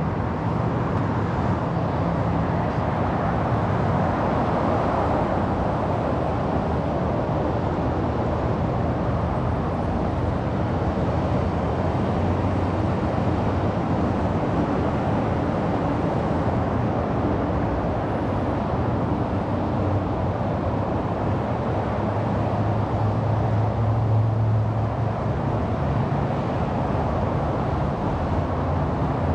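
City street traffic: a steady rush of passing cars, with a low engine hum that swells about three-quarters of the way through as a vehicle goes by.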